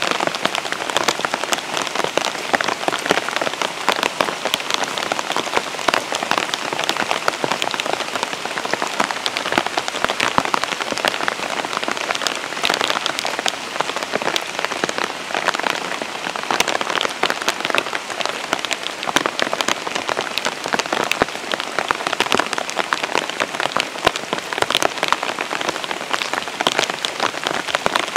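Steady rain falling, with a dense patter of many sharp raindrop taps close by.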